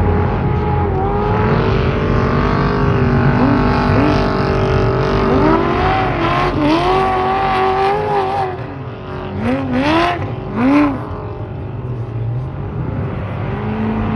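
Off-road race trucks' engines running hard on a dirt course. Their pitch climbs in several quick rising sweeps, each cut off and starting again as the trucks accelerate and shift.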